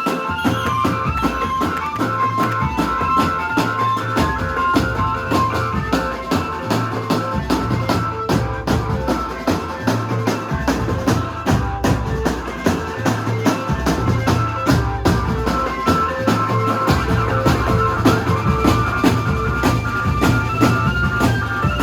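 Music with a steady drum-kit beat, a bass line that moves between held notes, and a sustained melody on top.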